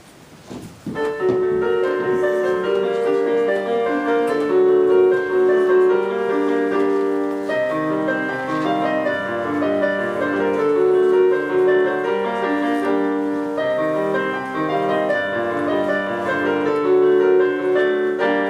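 Piano music: a melody over chords that begins about a second in and carries on at an even loudness.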